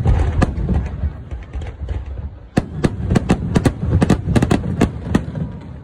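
Fireworks going off: low booming rumble with sharp cracking bangs, thickening into a rapid run of several cracks a second about halfway through.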